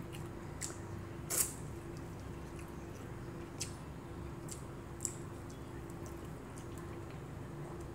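Mouth sounds of a person eating rice and fish by hand: quiet chewing with a few short, sharp wet clicks and smacks, over a faint steady hum.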